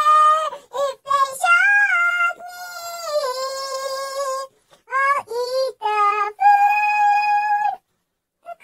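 Doberman howling in a series of long, wavering notes, some sliding down in pitch, with short breaks between them; it stops a little before the end.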